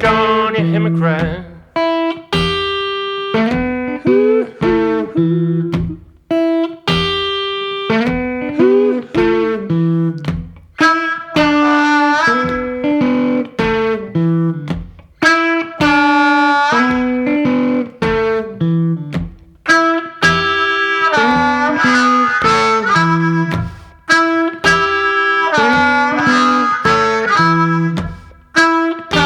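Blues played by a one-man band: guitar with harmonica, a repeating stop-start riff with held notes, in an instrumental passage without singing.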